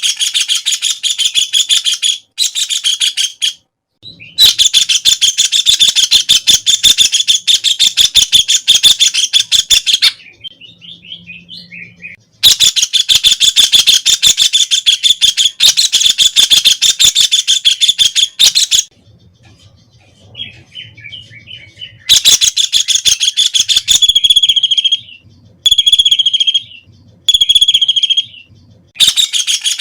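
White-throated kingfisher calling with its rapid, high trill, repeated in long bouts of up to about six seconds and broken by short pauses, with shorter bursts near the end.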